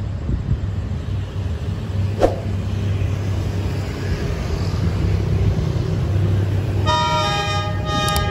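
Diesel locomotive horn sounding one chord blast of just over a second, about seven seconds in, over a steady low engine rumble.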